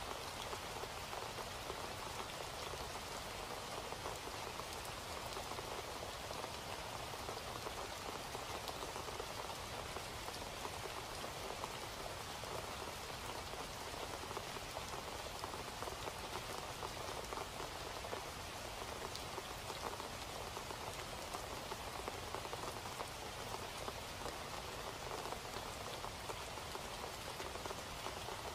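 Steady rain falling, an even hiss of many small drop ticks that doesn't change in level.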